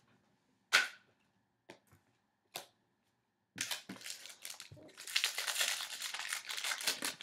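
A sharp click, then a few faint ticks, then about three and a half seconds of steady crinkling and tearing: a trading card pack wrapper being ripped open and crumpled.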